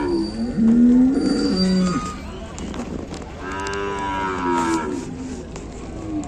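Cattle mooing: several long calls, the loudest in the first two seconds and another starting about three and a half seconds in.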